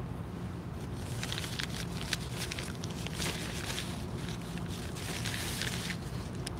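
Irregular small clicks and scrapes close to the microphone, starting about a second in, over a steady low hum: eating and handling noise as she works a fork and holds the phone.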